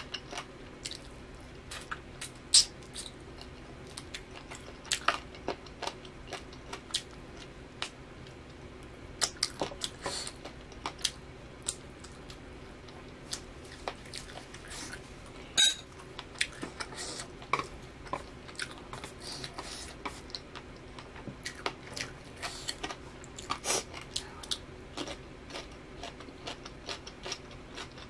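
Close-miked chewing and biting of pan-grilled chicken, a continual run of small sharp crunchy clicks with a couple of louder ones, over a faint steady hum.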